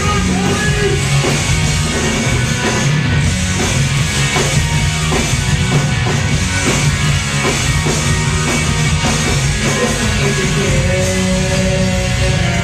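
Live rock band playing loud, with pounding drums and distorted electric guitar keeping a steady beat.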